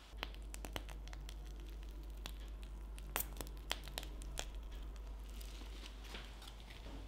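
Piping bag of choux pastry being squeezed: the bag crinkles and crackles in irregular small clicks while the dough squishes out through the star nozzle.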